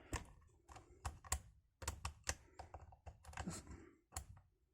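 Lock pick and tension bar working in the keyway of an Abus 72/40 aluminium-bodied padlock: irregular light metal clicks and scrapes as the pins are probed.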